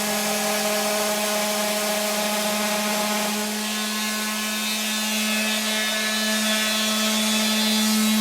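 Electric sander running steadily against wood, a constant motor hum over a rasping hiss.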